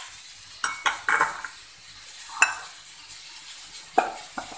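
Kitchenware being handled on a counter: a few separate clinks and knocks of bowls and utensils with short scrapes between them. The sharpest knock comes about two and a half seconds in.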